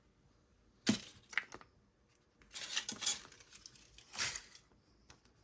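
Plastic surprise-egg capsule being handled and pried open: two sharp clicks about a second in, then bursts of light clicking and clattering around three and four seconds in.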